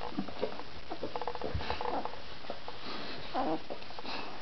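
Irish red setter puppies, 18 days old, giving several short squeaks and whimpers, with a quick run of small clicks about a second in.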